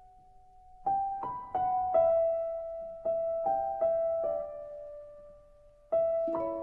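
Slow piano music without singing: single struck notes that each ring and fade, starting about a second in, with a short lull before a few more notes near the end.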